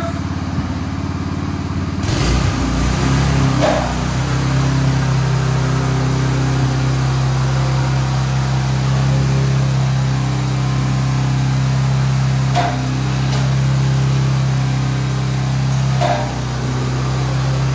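Honda GX270 single-cylinder engine of a tracked dumper running steadily as the machine crawls on its rubber tracks; the engine note firms up about two seconds in, with a few short squeaks or clicks later.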